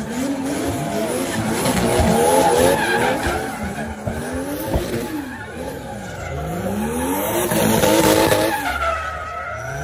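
Two drift cars spinning donuts in tandem: their engines rev up and down hard, over tyres screeching and hissing on the asphalt. The revving and tyre noise swell twice, about two seconds in and again near eight seconds.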